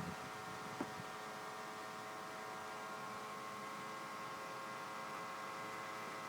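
Electric drive motor of an RC model fishing cutter running steadily, a faint even hum of several tones, with one short click about a second in.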